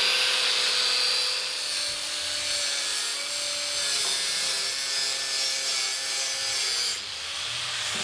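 Cordless angle grinder cutting into a steel pipe: a steady abrasive hiss over a motor whine that wavers slightly as the disc bites. The hiss eases near the end.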